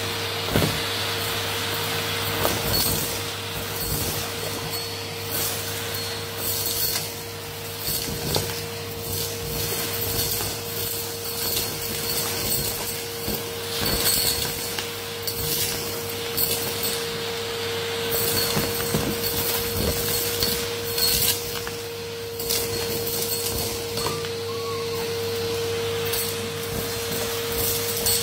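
Vacuum cleaner running with a steady whine as its bare metal wand sucks dirt, grit and small stones off a carpet. The debris clinks and rattles up the metal tube in frequent sharp ticks.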